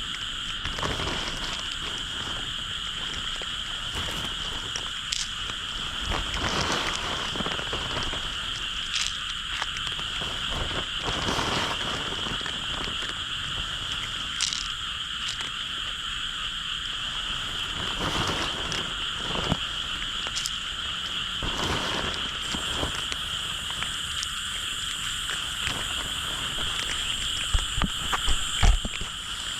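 A dense chorus of frogs calling steadily from the fields, with a few brief thumps near the end.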